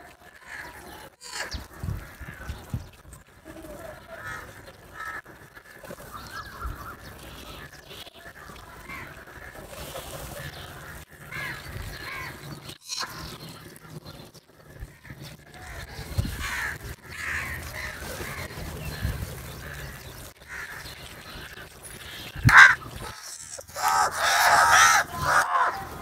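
A flock of house crows cawing at irregular intervals. The calls build to a loud, crowded burst near the end.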